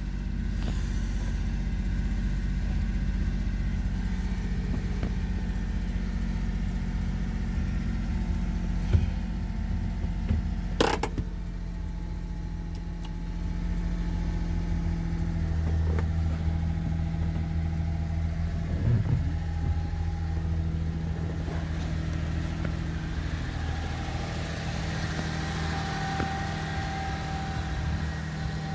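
Small gasoline engine of a Japanese kei dump mini truck running steadily. There is a sharp click about 11 seconds in, and the engine note changes about halfway through.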